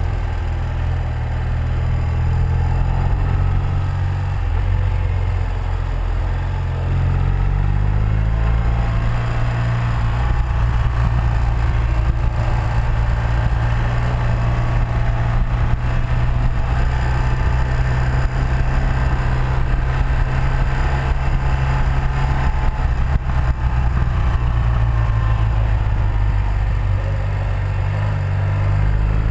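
The air-cooled flat-twin boxer engine of a 1984 BMW R100RS motorcycle running under way. Its pitch falls and climbs as the throttle is rolled off and on through the bends, dropping about four seconds in and rising again a few seconds later.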